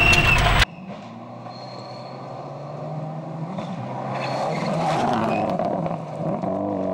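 Subaru Impreza WRX STI rally car: loud in-cabin engine noise for the first half second, then an abrupt cut to the car heard from outside. Its turbocharged flat-four engine grows louder as it approaches on gravel, and its revs rise and fall as it slides through a corner near the end.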